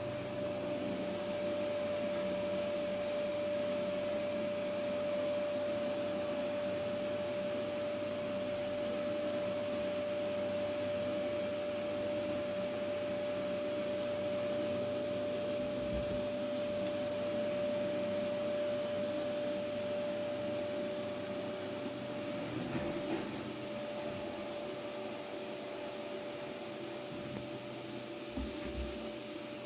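A machine running steadily: an even whir with a constant whining tone, and a few soft thumps.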